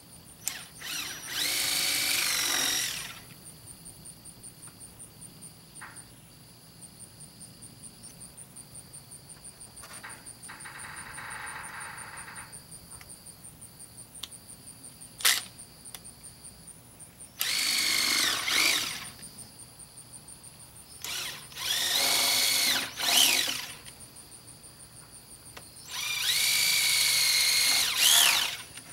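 Cordless drill running in four bursts of a couple of seconds each, drilling down into the top edge of a panel; the motor whine climbs as it spins up and drops as it stops each time.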